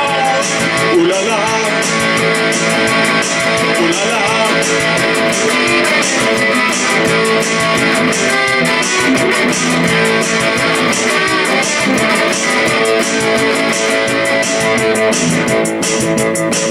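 Electric guitar strummed in a steady, even rhythm, an instrumental passage of a song.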